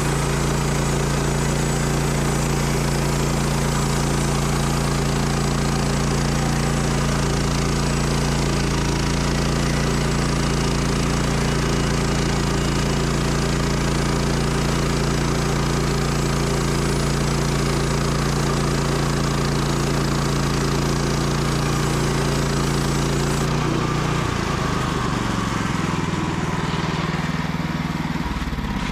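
Small gasoline engine of a Frontier OS31 portable band sawmill running steadily under throttle. Near the end its note drops and the sound eases off.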